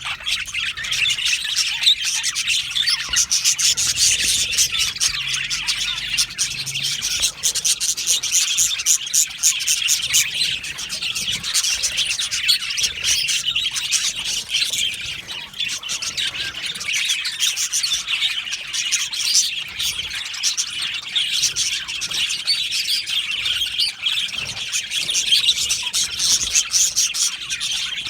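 A flock of budgerigars (budgies) chirping and chattering continuously, many birds at once, with dense high twittering and no pauses.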